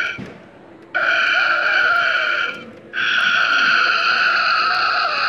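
Animated hanging reaper Halloween prop playing its harsh, tinny growling sound effect through a small built-in speaker while it shakes, in long bursts broken by brief pauses about a second in and near three seconds in.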